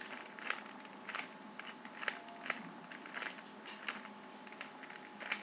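Plastic Rubik's cube being turned and handled: a run of irregular sharp clicks and clacks as the layers snap round, a few of them louder.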